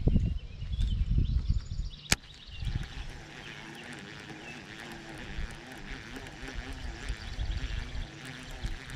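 Baitcasting reel being cranked in a steady retrieve, its gears whirring evenly, after a single sharp click about two seconds in. Low rumbling thumps on the microphone fill the first two seconds.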